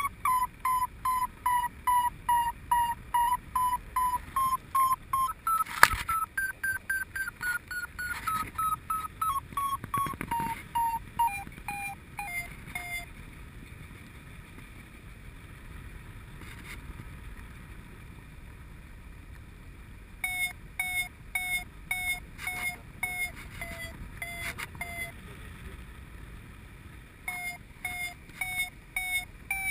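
Paragliding variometer beeping, about two beeps a second, the pitch stepping up and falling away as the climb rate changes: the sign of rising air while soaring. The beeping stops for several seconds in the middle, then comes back lower-pitched, with one sharp click about six seconds in and a faint rush of wind throughout.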